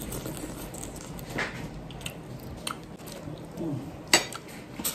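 Close-up eating sounds of shrimp in sauce eaten by hand: chewing and mouth noises, with scattered small clicks and one sharper click about four seconds in.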